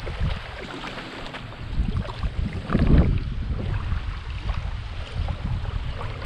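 Wind buffeting the microphone, a rough rumbling noise that swells into a strong gust about three seconds in.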